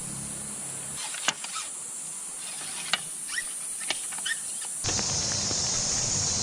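Rain falling on an open umbrella overhead: a steady hiss that sets in suddenly about five seconds in. Before it, a quieter outdoor stretch with a sharp click and several short high chirps.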